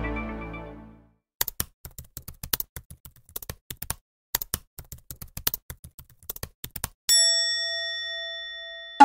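Title-card sound effects: a rapid, irregular run of key clicks like typing, then a single bell ding that rings on for about two seconds and fades.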